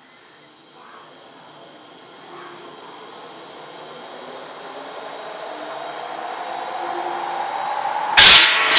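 Large circular firewood saw on a DC motor, its whine rising slowly in pitch and growing louder as the blade spins up. Near the end comes a brief, very loud rasp as the log is fed into the blade.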